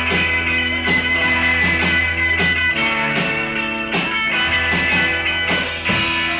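Live rock band playing: electric guitars hold ringing, sustained notes over a bass line and a drum kit keeping a steady beat, with a chord change near the end.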